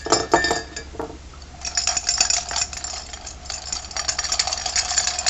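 Markers and pencils clattering and clinking together: a few sharp clicks at first, then a dense rapid clatter from about a second and a half in.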